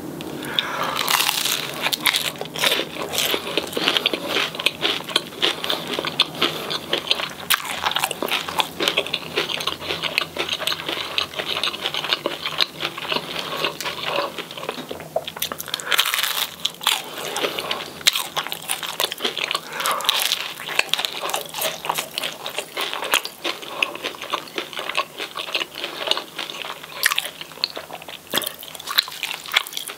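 Close-miked biting and chewing of crispy battered fish and fries: continuous crunching, with louder bites about a second in and again around 16 and 20 seconds in.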